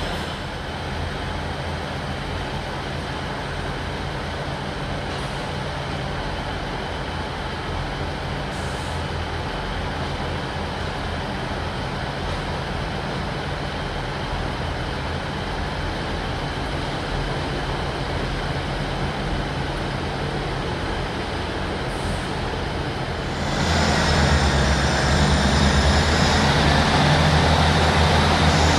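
Diesel multiple unit engines running steadily under a station roof. About 23 seconds in, the sound abruptly gets louder, with a faint rising whine, as a unit close by runs its engine up.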